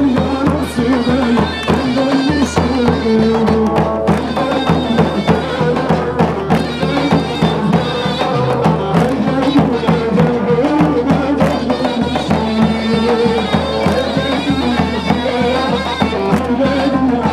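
Traditional folk music: a melody instrument playing over a fast, steady drum beat.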